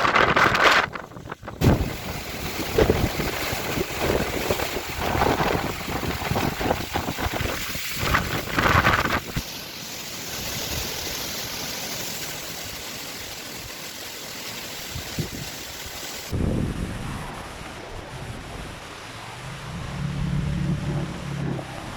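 Strong, gusty cyclone wind buffeting the microphone over the rush of surf. About halfway the buffeting eases to a steadier rush, which changes abruptly to a duller, quieter one about three-quarters through, with a low steady hum near the end.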